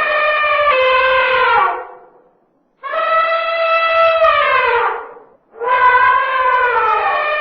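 Elephant trumpeting: long calls of about two seconds each, every one sliding down in pitch as it ends, repeated with short gaps. One call ends early on, a full call follows, and another begins about four seconds in.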